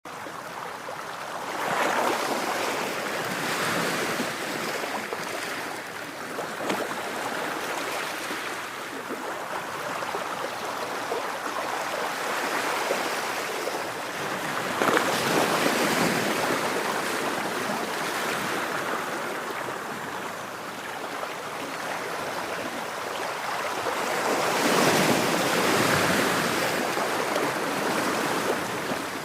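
Ocean waves breaking and washing on a shore, in slow swells that build and fall back, with the loudest surges about two seconds in, around the middle and near the end.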